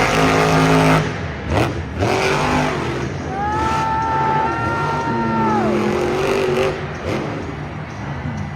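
Off-road 4x4 engine running hard under revs. A higher pitch holds for a couple of seconds about halfway through, then falls off.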